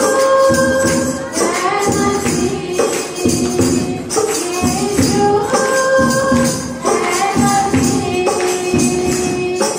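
A Hindi Christian devotional song sung by a woman into a microphone, with a tambourine shaken and struck to a steady rhythm under held melody notes.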